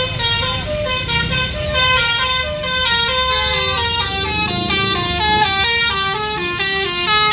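Bus 'telolet' musical air horn playing a rapid melody of stepped notes, several horn tones sounding together, over the low rumble of the bus and traffic.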